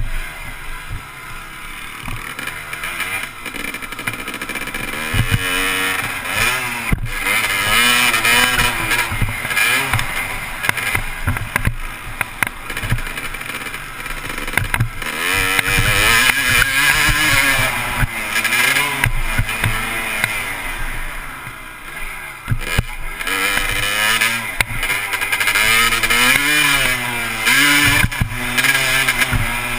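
Dirt bike engine being ridden hard, its pitch repeatedly rising as it revs up and dropping off between gear changes, with a few sharp thumps along the way.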